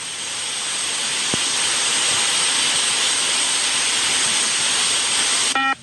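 Loud rushing hiss that swells over the first couple of seconds, holds steady, then cuts off abruptly. As it stops, a short electronic beep from the multi-stage fitness test sounds, marking the end of a shuttle.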